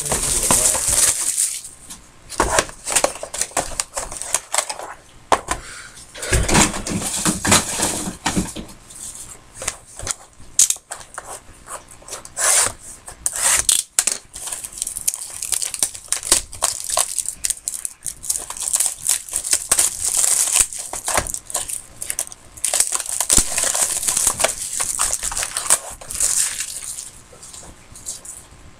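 Sports card packaging being opened and handled by hand: a plastic wrapper crinkles and tears, with cards and a small cardboard box clicking and knocking on the desk. The rustling comes and goes, louder in a few stretches.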